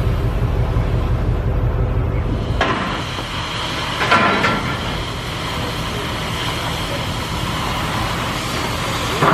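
A low rumble for the first couple of seconds, then the steady hiss of steel being cut on a burnt-out fishing boat's hull, with a sharp metallic knock about four seconds in.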